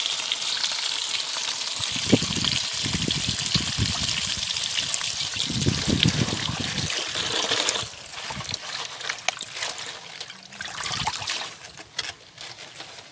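A stream of running water pours into an aluminium basin of lettuce leaves while a hand swishes the leaves about, sloshing and splashing. About eight seconds in, the pouring stops, leaving only intermittent sloshing as the leaves are rinsed in the standing water.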